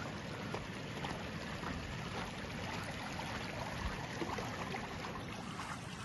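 Shallow stream running steadily over stones, with a few faint clicks.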